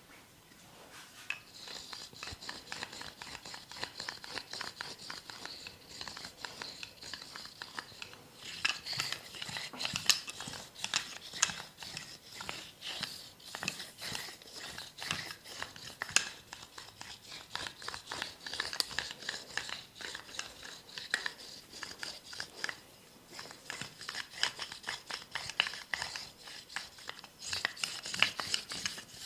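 Hands rubbing and scratching during a massage: a dense crackle of many small scrapes and friction sounds, with a short lull about three quarters through.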